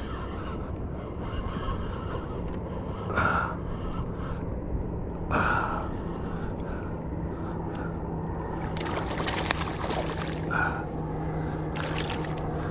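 Steady wind and water noise around a kayak, with two short breathy gasps from the angler as he fights a hooked tautog. Late on, bursts of splashing as the fish is brought up to the surface beside the hull.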